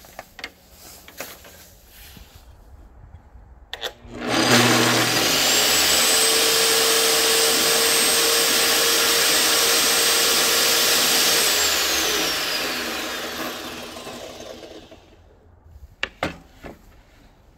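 Bosch GTS 635-216 table saw switched on with a click and running up, its motor and blade holding a steady high whine for about seven seconds, then switched off and winding down with a falling whine over about three seconds. A few light clicks follow near the end.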